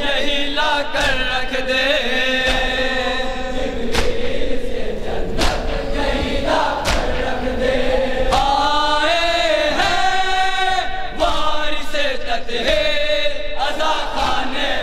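A group of men chanting a noha, a Shia lament, together into a microphone. Sharp slaps of hands striking chests (matam) come now and then.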